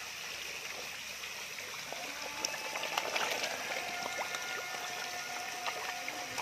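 Pond water splashing and churning as a crowd of large carp thrash at the surface around a hand, with small scattered splashes. A thin steady tone joins about halfway through.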